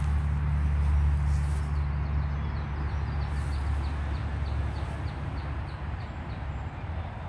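A low rumble that slowly fades, with a bird repeating a short high chirp about three times a second through the middle.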